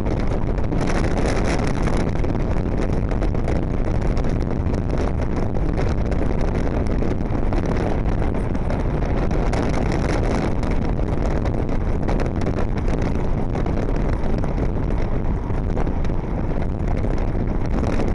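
Strong wind buffeting the camera microphone: a loud, steady rushing noise, heaviest in the low end.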